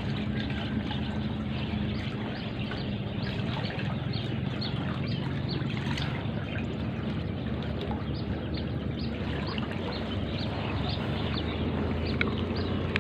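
Water pouring and trickling steadily, with many small irregular splashes, over a steady low hum.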